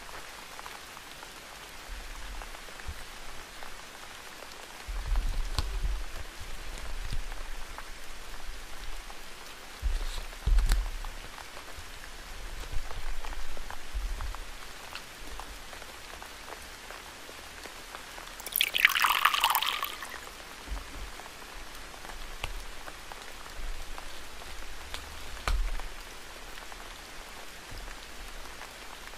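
Steady rain hissing throughout, with soft handling sounds as paper cutouts are moved on a notebook page. A brief, louder paper rustle comes about two-thirds of the way in.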